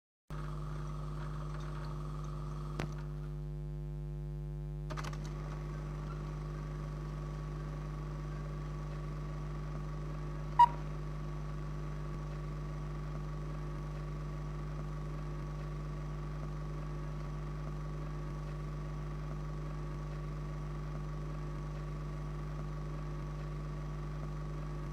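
Steady hum and hiss from an old film soundtrack, with a few clicks; the loudest is a single sharp click about ten seconds in.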